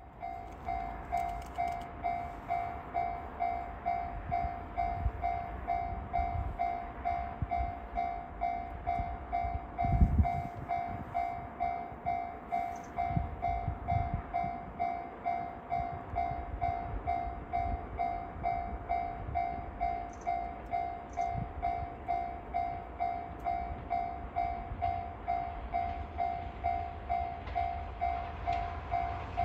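Japanese railway level-crossing alarm ringing steadily, an even pulsed tone about two strokes a second, as a train approaches. A low thump about ten seconds in, and the rumble of the approaching 381-series electric train grows near the end.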